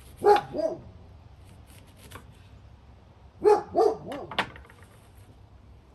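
Dog barking in short yaps: two near the start, then a quick run of four about three and a half seconds in. Faint knife taps on a wooden cutting board fall between the barks.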